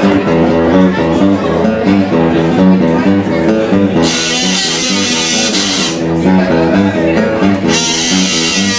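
Live band playing an instrumental rock-and-roll intro: a strummed guitar over bass notes in a steady beat. About four seconds in, cymbals and an alto saxophone join, and the cymbals come back near the end.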